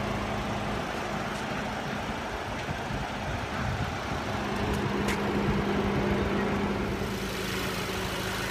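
2016 Audi TT's 2.0-litre turbocharged four-cylinder engine idling steadily. It grows a little louder for a few seconds midway, and there are a few faint clicks.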